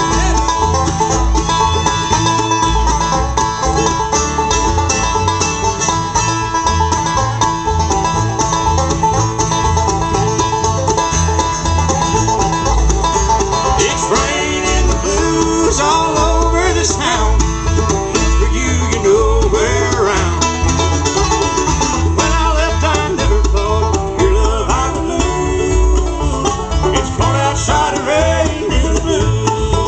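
Bluegrass band playing live: banjo, mandolin, acoustic guitar and upright bass, with a steady bass pulse and voices singing through the middle part.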